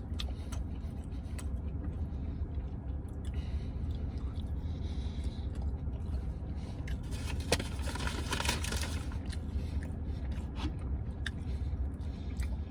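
Eating inside a car cabin: quiet chewing and small clicks over a steady low rumble, with a louder scraping rustle lasting about a second and a half, some seven and a half seconds in.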